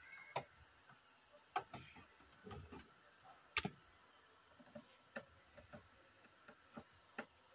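Screwdriver working on a car's plastic inner door trim around the door pull: irregular sharp clicks and taps, the loudest about three and a half seconds in.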